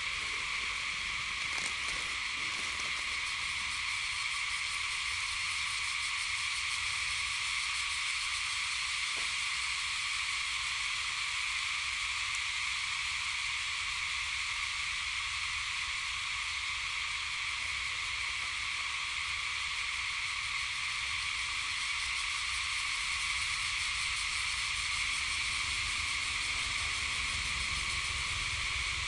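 Steady insect chorus: a continuous high buzz that holds at one level with no break or change in pitch.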